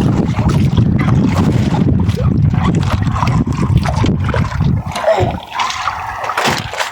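Water splashing and sloshing as a fishing net is hauled in by hand, with close, rough rumbling noise.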